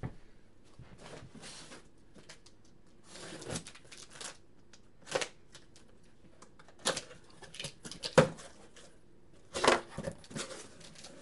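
Cardboard boxes being handled and moved: scattered scraping and rustling, with several sharp knocks in the second half.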